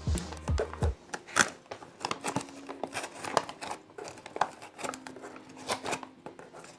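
Plastic food pouch being handled, crinkling with many irregular small crackles.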